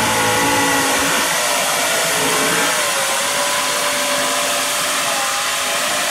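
Pulling tractor's engine running hard at high revs during a pull, its pitch sagging slightly as it works.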